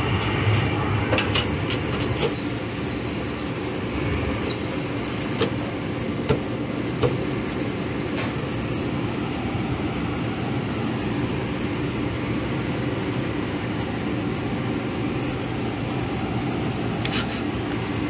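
Gas furnace firing: the burners and the draft inducer motor running with a steady rush, broken by a few sharp clicks.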